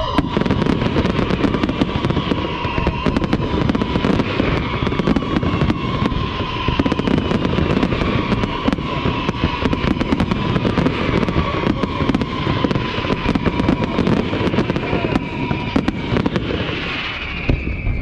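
Fireworks display: a dense, continuous crackle of many small sharp pops and bangs, with a steady high tone running underneath. The crackling thins slightly near the end.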